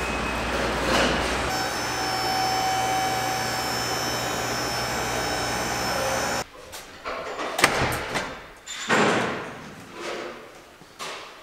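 Auto shop work noise: a steady machine hum with several whining tones that cuts off suddenly a little past halfway, giving way to scattered metal clanks and knocks, the sharpest a second or so later.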